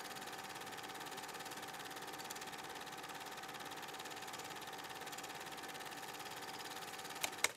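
A steady, faint mechanical hum with a thin high whine running through it. Two sharp clicks come close together near the end, and then the sound cuts off.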